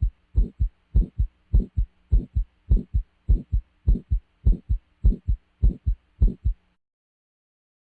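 Recorded heartbeat: paired low thumps (lub-dub) at a steady rate of about 100 beats a minute, stopping abruptly near the end.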